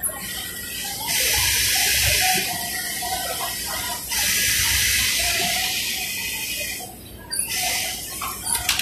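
JUKI industrial lockstitch sewing machine running in spurts, starting and stopping: a hissing whirr for a little over a second about a second in, a longer run of about three seconds from about four seconds, and a short burst near the end.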